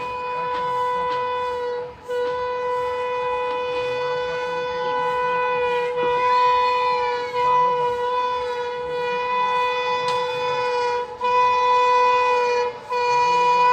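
Electric locomotive air horn honking in long, steady, single-pitch blasts, broken briefly about two seconds in and twice near the end.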